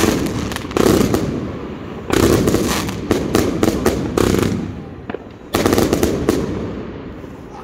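China Red V Master firework cake firing in volleys: sudden loud bangs about one, two and five and a half seconds in, each followed by a dense crackle that dies away, fading out near the end.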